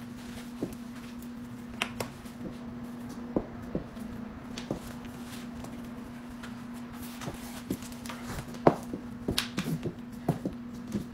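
Soft, scattered clicks and rustles of hands fitting silicone toe pads and pulling on satin pointe shoes, then sharper knocks as the shoes tap and rise onto pointe on the floor in the second half, over a steady low hum.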